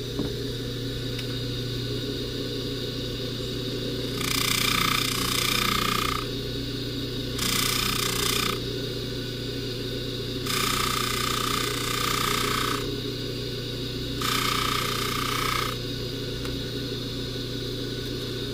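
Bench polishing buffer motor running with a steady hum. Four times a chain is pressed against the spinning buffing wheel, each time giving a stretch of louder hissing lasting one to two seconds.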